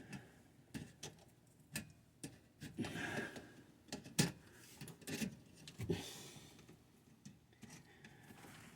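Faint scattered clicks and soft rustling of hands handling electrical wire and small parts, a few separate clicks a second or so apart.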